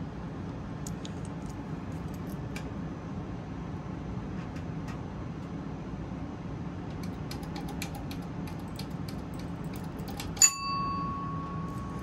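A low steady hum with a few faint handling clicks. About ten seconds in comes a single sharp metallic ding that rings out briefly. The fire alarm horns are silent.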